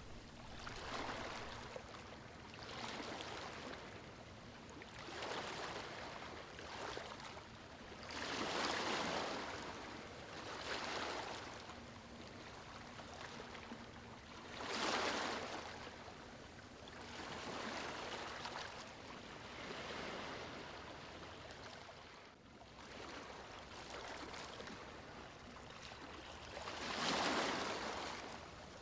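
Gentle ocean waves washing in and drawing back, a soft rising and falling surge every couple of seconds. Three larger waves break louder, the last near the end.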